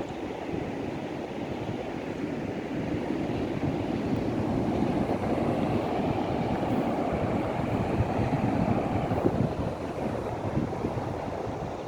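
Ocean surf washing onto the beach, swelling louder in the middle, with wind rumbling on the microphone.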